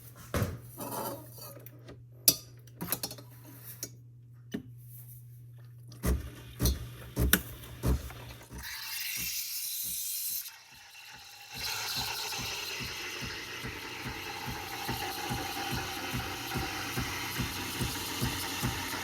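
Kitchen clatter of cups and metal parts at an espresso machine, with several heavy knocks, then a loud hiss for about two seconds. After that the machine runs steadily with a soft regular pulse about twice a second.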